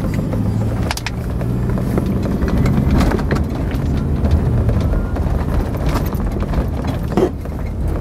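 Car engine and road noise heard from inside the cabin while driving, a steady low hum with a few sharp knocks and rattles from bumps along the way.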